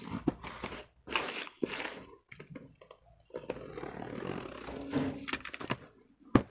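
Utility knife slicing through the packing tape and cardboard of a parcel in irregular scraping strokes, then the taped flap being pulled apart, with a sharp click near the end.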